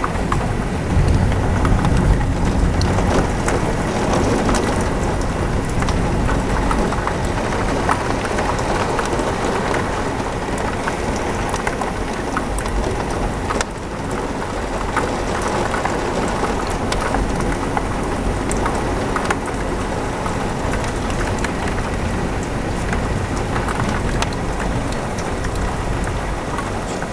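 Heavy rain pouring steadily in a thunderstorm, with many fine drop ticks in the steady hiss and a low rumble in the first few seconds.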